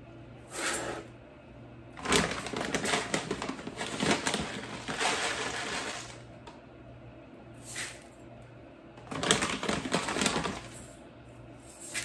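Wild bird seed scooped with a metal measuring cup from a plastic bag and poured into a bowl: rattling, pattering seed mixed with crinkling of the bag, in several bursts, the longest about four seconds starting two seconds in.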